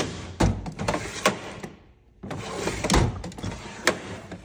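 Metal tool chest drawers sliding open and shut on their runners twice, with several sharp clunks and knocks as they move and stop.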